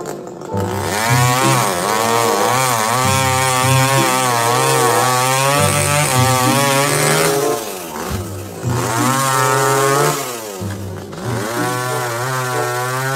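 Petrol chainsaw running and cutting into a tree trunk, its engine speed rising and falling with the load. The engine drops back briefly about eight seconds in and again about eleven seconds in.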